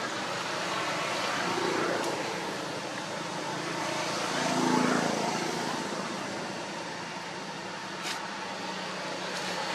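Steady rumbling noise that swells twice and fades, with a brief lower tone in the middle and a short click near the end.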